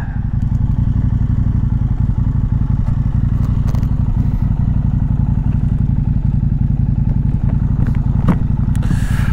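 KTM 790 Adventure R's parallel-twin engine running steadily, with a few light clicks over it.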